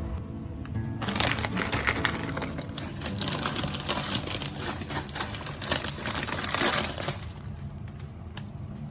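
Crinkling, crushing noise full of small clicks, starting about a second in and easing off near the end, over faint background music.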